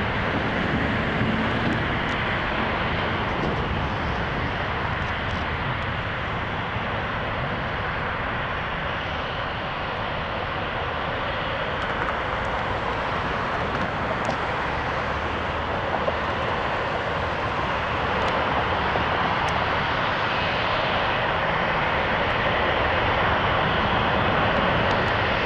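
Boeing 787-8 Dreamliner's twin turbofan engines at takeoff thrust during the takeoff roll: a steady, dense rush of jet engine noise that grows a little louder over the last several seconds.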